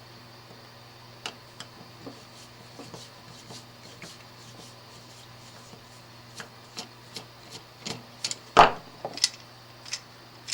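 Scattered small clicks and taps from handling tools and electrical parts, with one louder knock about eight and a half seconds in, over a steady low hum.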